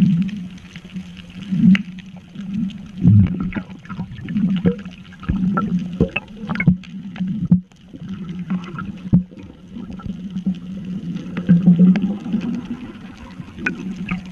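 Underwater sound picked up by a submerged camera: a steady low hum that swells and fades every second or two, with scattered sharp clicks and bubbling.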